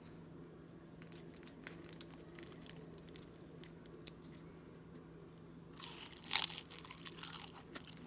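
Crunchy chewing of stir-fried dried anchovies (myeolchi-bokkeum): small faint crunches throughout, and a louder burst of crunching about six seconds in, over a steady low hum.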